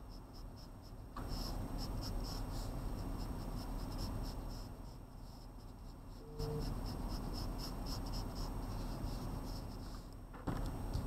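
Pencil sketching on paper: many quick, light, repeated scratchy strokes as lines are drawn and reworked.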